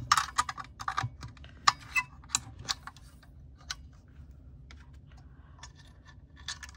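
Sharp metallic clicks and taps from an Atlas 150 pasta machine being handled and its scraper blades fitted back on, many in the first three seconds and fewer after.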